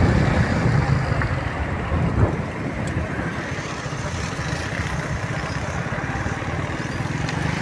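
Motor vehicle engine and road noise, strongest at first and easing off after about two seconds, over a steady hiss.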